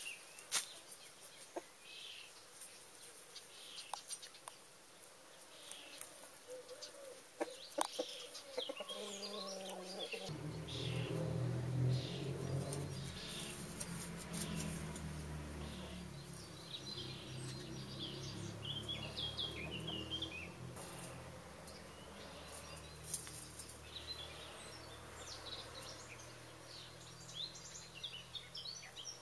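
Domestic hens foraging, with clucks, sharp clicks and wing flaps, while small wild birds chirp high above them. About ten seconds in, a low steady drone of held tones comes in underneath and stays.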